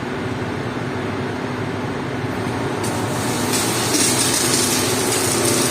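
Concrete pump truck's diesel engine running steadily. About three seconds in, the hiss of a high-pressure water jet starts and grows louder: the newly replaced water pump spraying strongly.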